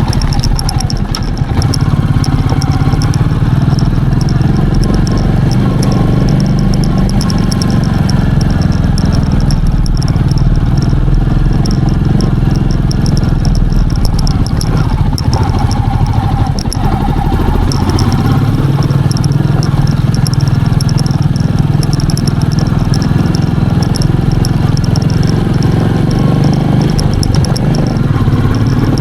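Royal Enfield Meteor 350's single-cylinder engine running on the move, easing off for several seconds in the middle before pulling strongly again.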